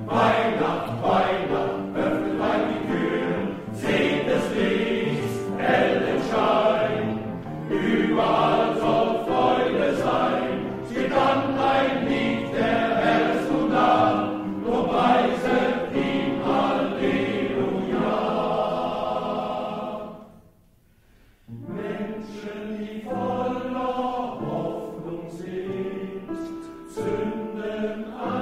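Men's choir singing, with a brief pause about twenty seconds in before the singing starts again.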